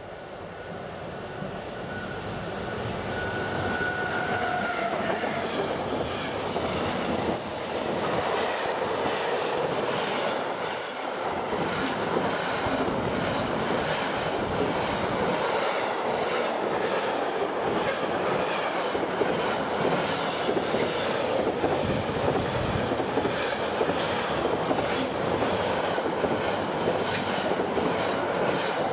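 Intermodal freight train hauled by a class 185 electric locomotive approaching and passing close by. It grows louder over the first four seconds or so, then holds as a steady rolling rumble of wagon wheels with regular clicks as the wheels cross rail joints.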